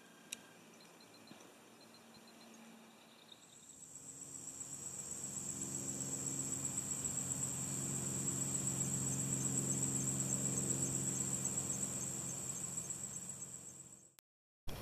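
Insects trilling: a steady, high-pitched, finely pulsing chorus, like crickets or katydids, that swells in after a few quiet seconds and fades out near the end. A low steady hum runs under it.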